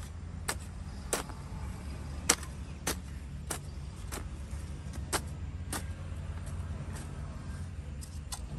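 Blade of a kassi, a broad-bladed digging hoe, chopping into damp, stony soil in repeated sharp strikes, roughly one every half second to second and a half, with a pause in the middle. A steady low rumble runs underneath.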